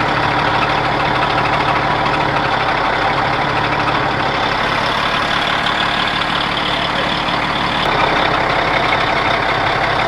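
Large engine running steadily at idle.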